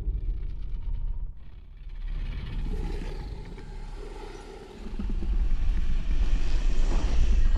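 Deep rumbling drone of trailer sound design. It thins out about a second and a half in, then swells again about five seconds in.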